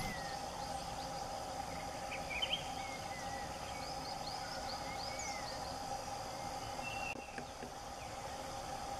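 Forest ambience: a steady insect drone with scattered short bird chirps and calls, including a quick run of chirps about four to five seconds in.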